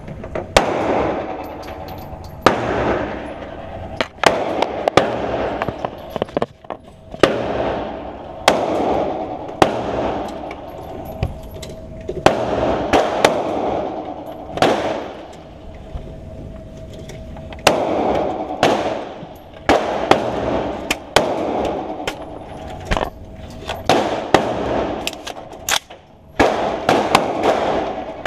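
Gunshots fired at irregular intervals, some loud and sharp and many fainter, each followed by a brief echo: rifle fire at a shooting range.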